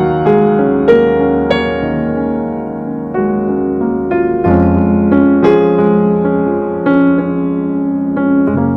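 Background piano music, notes struck one after another with sustained chords.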